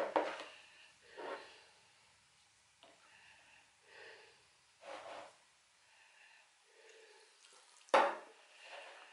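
Hands squeezing and working wet, crumbly bread dough in a plastic bowl: soft, uneven squishing sounds a second or so apart. Near the end there is a sharp knock, a drinking glass being set down on the countertop.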